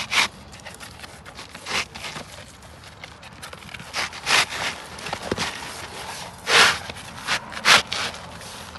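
Asphalt shingles scraping and rubbing against each other as a new shingle is worked into place on the roof, in a series of irregular short scuffs.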